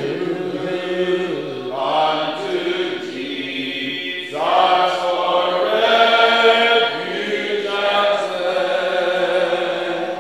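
Church congregation singing a slow hymn a cappella, many voices holding long notes, with a new line starting about four seconds in.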